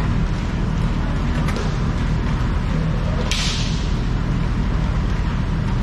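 Indoor inline hockey rink during play: a steady low rumble with faint scattered clicks from the game, and one short hiss a little past halfway.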